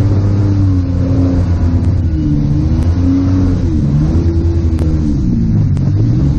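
Demolition-derby minivan's engine running and revving up and down several times, heard from inside its stripped-out cab, with a few light knocks.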